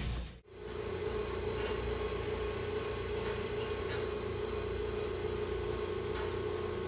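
Steady hum of running boiler-room machinery, with one even drone over a low rumble. The sound drops out for a moment just under half a second in, then the hum carries on unchanged.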